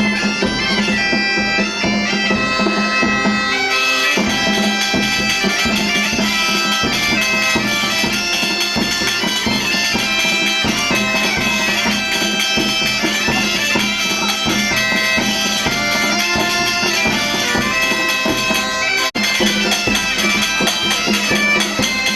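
Galician bagpipe (gaita) playing a melody over its steady drone.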